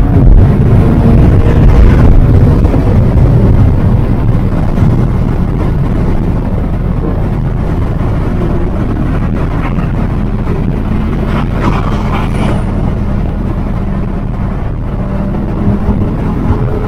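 Audi R8's V10 engine and road noise heard from inside the cabin while cruising on a freeway: louder over the first few seconds, then settling to a steady engine note.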